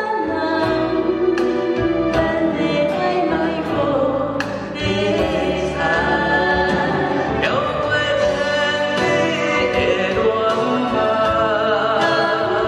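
A man and a woman singing a duet into handheld microphones over instrumental backing music, their voices amplified through the stage sound system.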